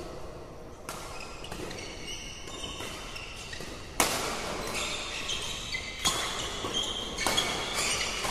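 Badminton rackets striking the shuttlecock during a doubles rally, a sharp crack at each hit with the loudest about four seconds in, among short high squeaks of shoes on the court floor.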